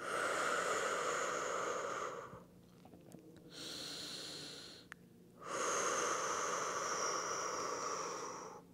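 A woman's slow, deep breathing close to the microphone: a long breath, a softer breath about halfway through, then another long breath.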